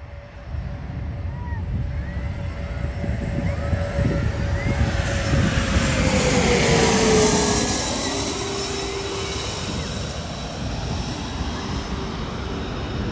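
Boeing 777-200ER's twin General Electric GE90 turbofans at takeoff thrust as the airliner lifts off and climbs out. The jet rumble builds to its loudest about seven seconds in, with a whine that drops in pitch at the peak, then eases off.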